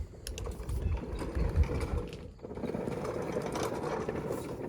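Mechanical rattling and clicking from a walk-behind mower with a striping roller attached as it is moved along, with a brief pause about halfway through.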